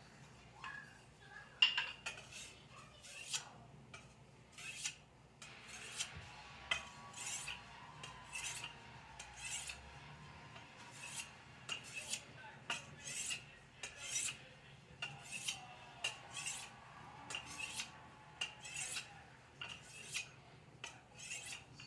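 Knife blade being sharpened by hand: a steady rhythm of short scraping strokes, about one and a half a second.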